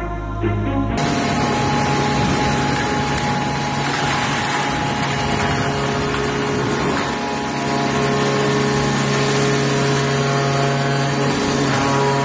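A horizontal hydraulic aluminum baler running: a steady machine hum with dense mechanical noise over it. The tail of a music intro plays for about the first second before the machine sound takes over.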